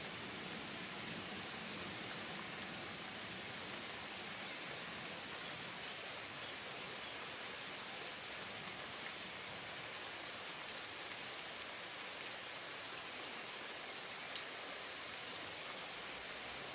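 Steady rain falling on garden foliage, an even hiss, with a few sharp drip ticks in the second half.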